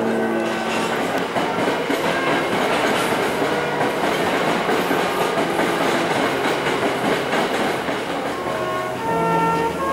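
A train running on the rails: a steady, loud rolling noise. Background music fades out at the start and comes back about nine seconds in.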